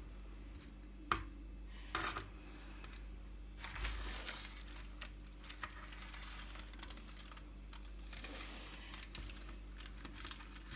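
Table knife spreading Nutella across a sheet of pastry dough: soft scraping, with scattered light clicks and taps of the blade.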